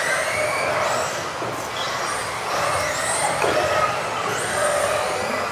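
Several electric RC off-road cars racing together: overlapping high-pitched motor whines that rise and fall as the cars accelerate and brake.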